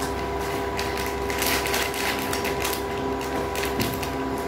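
A small mechanism running with a steady hum and rapid, irregular clicking.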